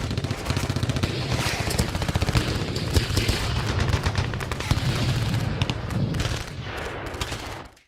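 Rapid automatic gunfire, a dense run of sharp shots that cuts off abruptly near the end.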